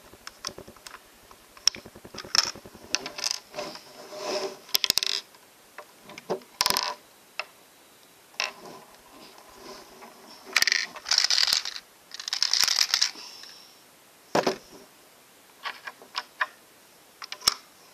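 Plastic LEGO bricks and parts of a handmade LEGO coin-operated candy machine clicking and rattling as it is handled and worked by hand. Scattered clicks run throughout, with a longer rattle about ten to thirteen seconds in and a single sharp knock just after.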